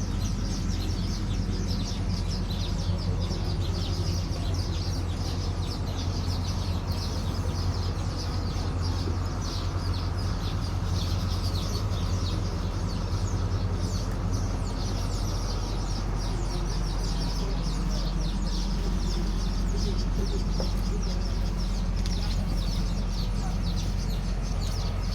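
Isuzu 6BG1 inline-six diesel engine running steadily, a low drone with a fast, continuous clatter of ticks over it; the engine is being torn down because it was knocking.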